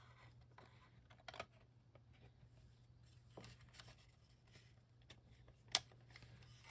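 Quiet handling of a plastic model car body and engine: a few faint clicks and taps, with one sharper click near the end, over a low steady hum.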